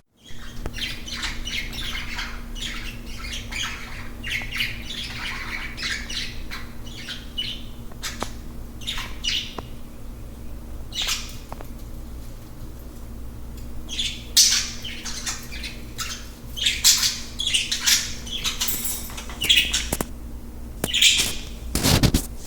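Birds calling: many short, separate calls in busy clusters, thickest in the second half, over a steady low hum.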